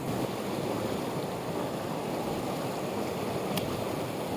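A fast mountain torrent rushing over rocks: a steady, even roar of white water, with one faint click about three and a half seconds in.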